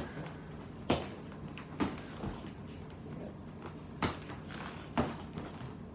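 Sharp smacks of boxing-glove punches meeting a partner's catching and parrying hands. There are five hits roughly a second apart, with a longer gap in the middle.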